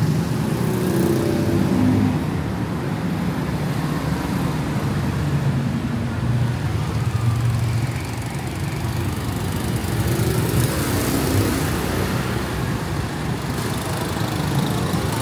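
Steady street traffic: motor vehicle engines running and passing close by.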